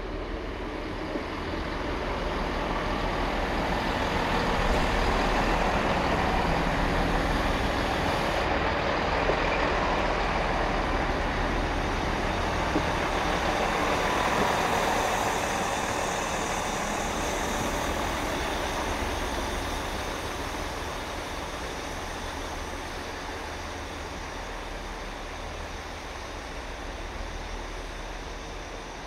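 Class 166 Networker Turbo diesel multiple unit running into the station, its diesel engines and wheels on the rails getting louder over the first few seconds. The noise is loudest in the middle, then fades as the train slows to a stand.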